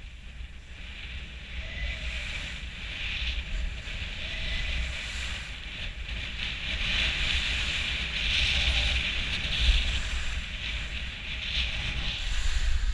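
Skis hissing and scraping over packed snow, with wind rumbling on a helmet-mounted GoPro's microphone; the sound grows louder over the first few seconds as the skier picks up speed.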